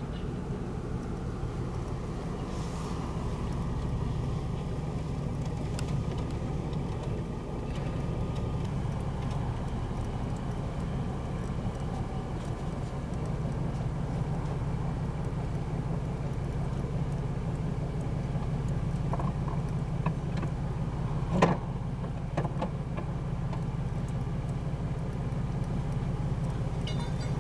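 Fishing boat's engine running at a steady idle, a continuous low hum, with one sharp knock about three-quarters of the way through.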